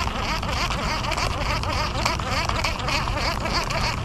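Dense, continuous chorus of small chattering animal calls from the marsh, with a higher buzz pulsing about four times a second over a steady low rumble.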